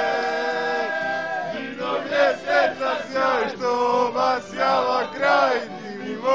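A group of men singing loudly together: one long held note, then short rhythmic sung syllables, about two or three a second.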